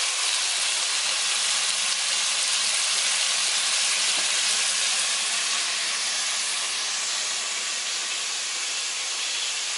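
Chopped tomatoes frying in oil in an aluminium pot: a steady sizzling hiss that eases a little in the second half.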